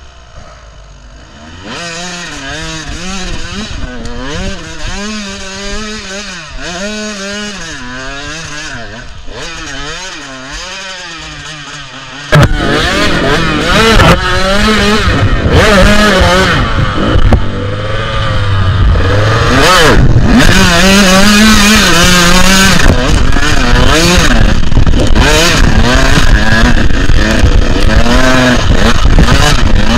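Small two-stroke dirt bike engine (an 85) being ridden, revving up and down over and over. It is fairly quiet at first and becomes suddenly much louder and closer about twelve seconds in.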